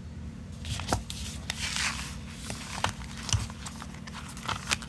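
Hands handling paper: scattered taps and clicks with a brief rustling swish about a second and a half in, over a low steady hum.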